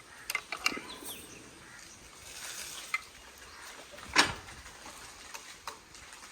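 Quiet outdoor background with a few scattered short clicks and knocks, the loudest about four seconds in; no engine running.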